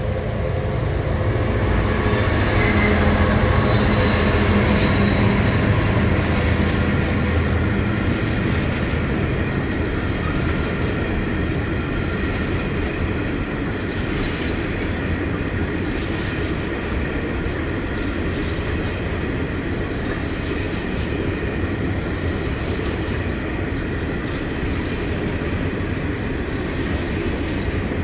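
82 class diesel locomotive hauling an empty coal train past. The engine drone is loudest in the first several seconds, then gives way to a steady rumble of the empty coal wagons rolling by. High-pitched wheel squeal comes and goes.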